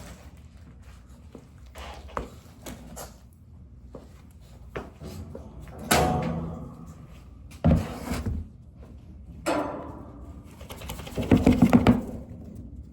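A string of knocks and thuds from things being handled: a sharp knock about six seconds in, a dull thud soon after, and a quick run of clattering strokes near the end.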